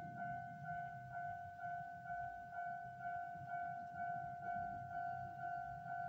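A steady high-pitched tone that pulses evenly about twice a second, over a low rumble.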